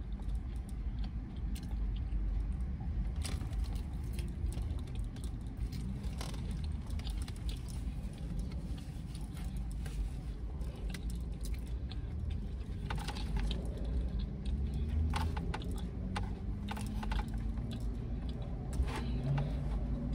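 Someone eating a salad: scattered clicks of a utensil against the container and chewing, over a steady low rumble inside a car.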